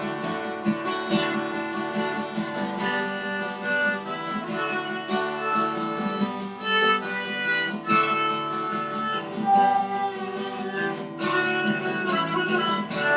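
Instrumental passage of a song: acoustic guitar strummed in a steady rhythm, with a melody line held over it.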